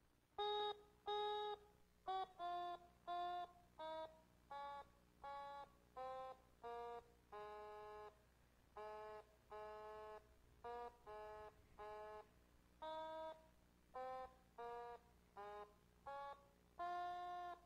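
Otamatone played as a tune: a run of separate short notes with small gaps between them, a few held longer, stepping up and down in pitch.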